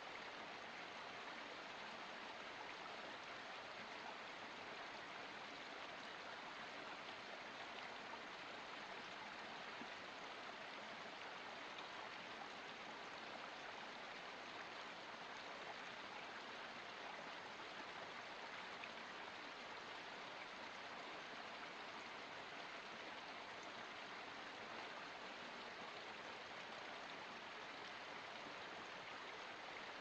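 Small forest stream trickling down over rocks: a faint, steady rush of running water with no breaks.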